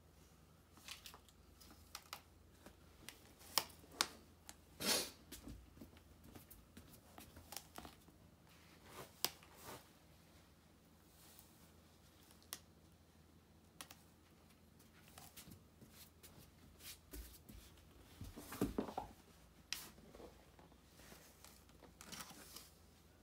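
Faint, scattered taps, scrapes and rustles of a stiff cardboard sheet being handled and shifted by hand. The louder rustles come about five seconds in and in a cluster about three-quarters of the way through.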